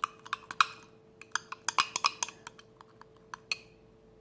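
A utensil clicking and clinking against a container while stirring sticky dish-soap slime: quick, irregular clicks, several a second, that stop about three and a half seconds in.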